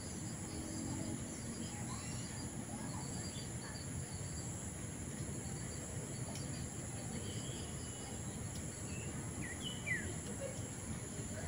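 Steady high-pitched insect drone with scattered short bird chirps over a low background rumble; a single brief tap near the end.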